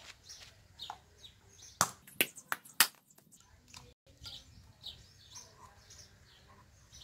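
Three sharp knocks, about half a second apart, of a dried coconut's hard shell being struck as it is broken open, with a few lighter clicks. Birds chirp throughout.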